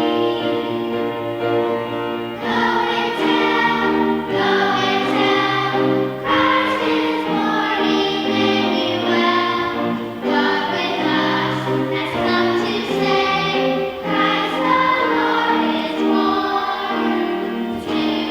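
Choir singing with instrumental accompaniment, sustained chords changing every second or so.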